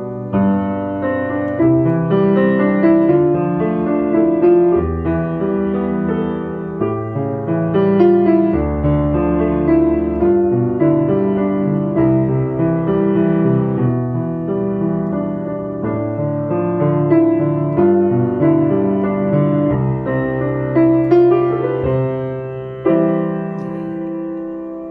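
Piano playing a song accompaniment: a moving bass line in the left hand under chords in the right hand. Near the end a final chord is struck and left to ring out, fading away.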